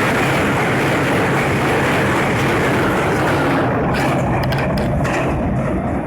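Train passing close by over a level crossing: a loud, steady rush of wheel and rail noise. The high hiss drops away about four seconds in, leaving a run of sharp clicks from the wheels.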